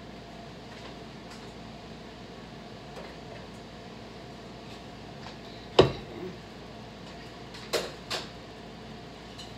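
Kitchen knocks against a steady low hum: one sharp, loud knock a little over halfway through, then two softer knocks in quick succession about two seconds later.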